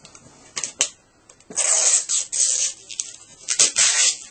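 Packing tape and plastic wrapping being peeled and pulled off a new computer: a few light clicks, then two stretches of crackly peeling and rustling, the first about a second and a half in and the second shorter, near the end.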